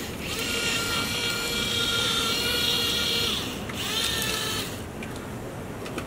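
Remote-control toy excavator's small electric gear motors whining as it works its arm: one steady run of about three seconds that rises in and falls off, then a shorter run about a second later.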